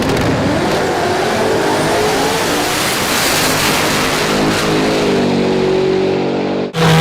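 Rotary-engined car running hard under load, its engine note climbing in pitch, then holding and shifting through the revs over a harsh, noisy exhaust sound; it cuts off abruptly near the end.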